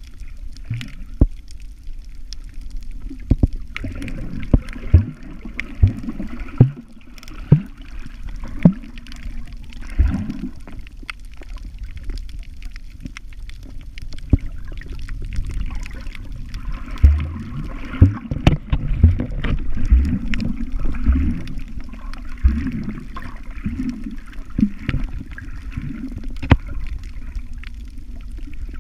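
Muffled underwater sound heard through a camera's waterproof housing: a steady low rumble of moving water with a fainter hiss, broken by many sharp clicks and knocks.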